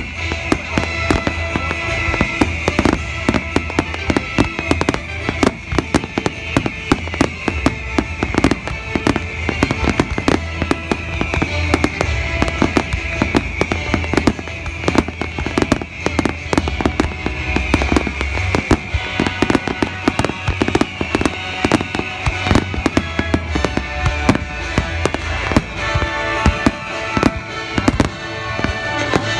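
Daytime starmine fireworks firing in rapid succession: a dense, unbroken string of sharp bangs and crackles, with music playing along underneath.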